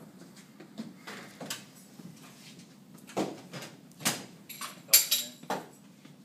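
Metal clanks and rattles from an ambulance stretcher being handled: a few faint knocks at first, then louder sharp clanks with a jangling rattle in the last few seconds.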